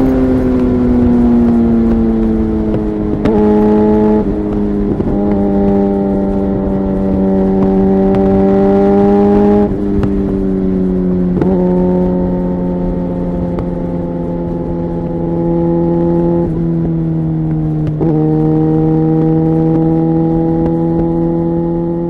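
A 2009 Suzuki GSX-R 750's inline-four running through a Yoshimura exhaust at a loud, steady note that slowly sinks in pitch. The note is broken several times by brief dips where the pitch steps.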